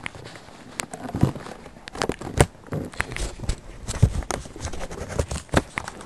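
Crinkling and rustling of a Nature Valley nut bar's plastic wrapper being handled and worked at, with irregular clicks and knocks throughout.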